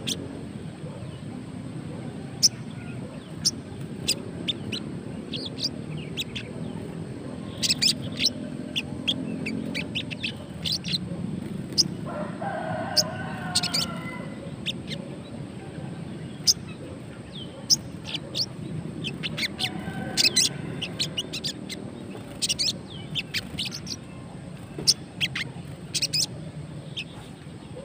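A caged sogon bird giving short, sharp, high chirps at irregular intervals. About twelve seconds in comes a lower, drawn-out call lasting about two seconds.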